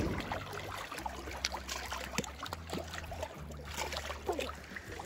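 Lake water trickling and lightly splashing around a person wading through shallow water, with scattered small drips and splashes over a low steady hum.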